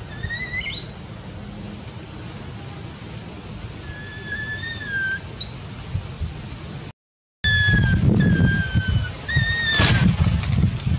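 Baby macaque crying: a series of separate high-pitched whimpering coos, one rising sharply in pitch about half a second in, the others level or slightly falling, the distress calls of an infant looking for its mother. The sound drops out briefly just past halfway, after which a low rustling runs under the cries.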